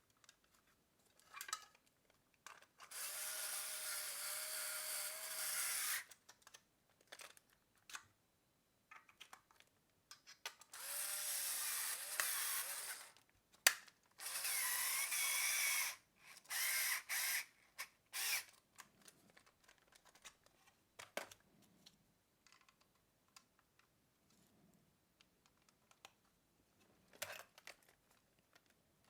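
Small electric screwdriver driving the screws that close up a shoulder microphone's plastic housing, in four runs of two to three seconds, its whine wavering in pitch. Light clicks and knocks of handling the parts between the runs.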